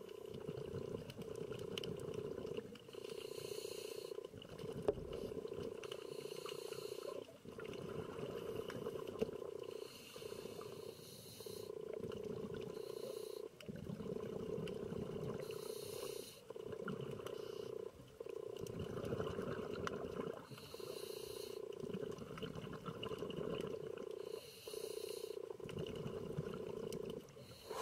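Scuba diver breathing through a regulator underwater, muffled through the camera housing: a low rumbling hiss of exhaled bubbles that swells and dips every few seconds with the breathing cycle.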